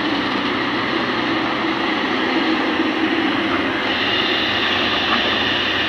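Kobelco excavator running steadily at working revs, its diesel engine and hydraulics making a loud, dense noise, with a higher steady whine joining about four seconds in.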